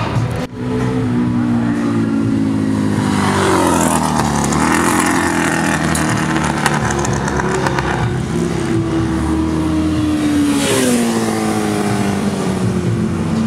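Classic racing motorcycle engines running at race pace. The engine pitch falls twice, a few seconds in and again about ten seconds in, as bikes go by or slow.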